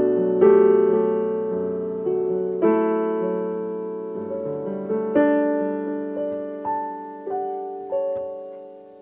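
Background music: slow, gentle solo piano chords that ring and fade, a new chord about every second, getting softer near the end.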